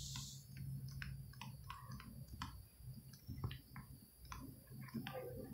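Faint, irregular clicks and taps of a stylus writing on a tablet screen, over a low steady hum.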